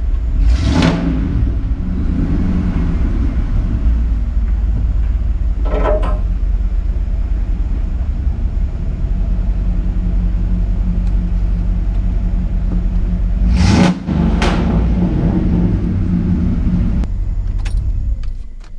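Ford truck's engine running at low speed as it creeps into a garage, with a few brief sharp noises over the steady rumble. It is switched off at the key right at the end.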